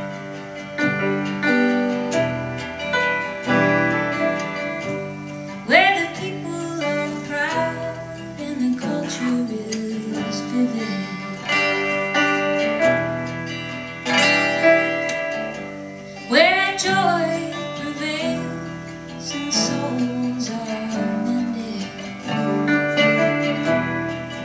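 Live folk music on acoustic guitar and piano, a song in the Ethiopian tezeta major scale. Twice, about six and sixteen seconds in, a note swoops sharply upward.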